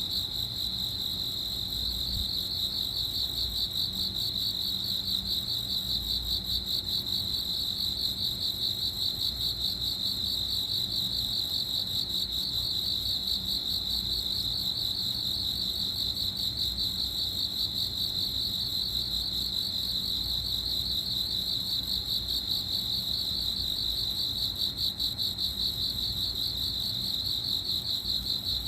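Cricket chirping in a continuous high trill, made of fast, even pulses with no pauses.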